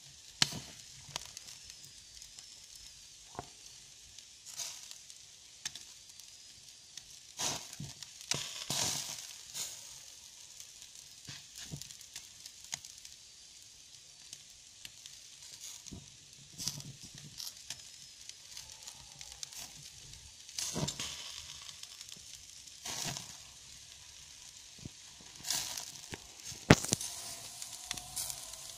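Meat skewers sizzling in a wire grill basket over wood embers: a steady high hiss broken by irregular sharp crackles and pops, with one sharp pop near the end.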